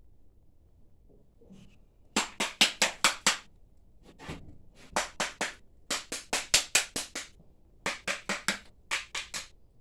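Rapid tapping of a screwdriver against a mud-caked ATV battery box to knock the caked-in mud loose so the battery will come out, in several quick bursts of about six sharp taps a second.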